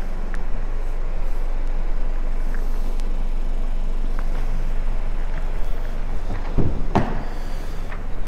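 Steady low hum with handling noise, then two short knocks about six and a half and seven seconds in as the car's driver's door is opened.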